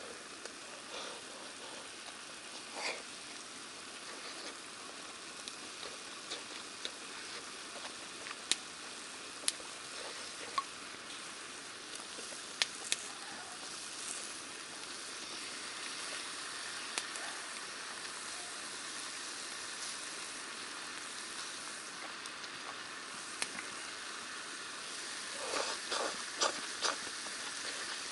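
Food sizzling and frying in a hot pan, a steady hiss with scattered sharp pops. Near the end comes a quick run of several knocks.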